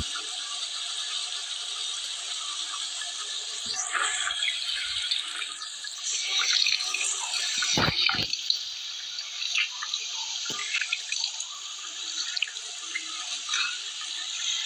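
Tap water running steadily into a bathroom sink, with splashing as someone washes at it, and two louder thumps a little past halfway.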